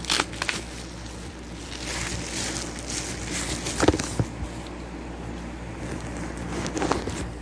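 Bubble wrap being pulled off a smartphone by hand: plastic rustling and crinkling with scattered sharp crackles.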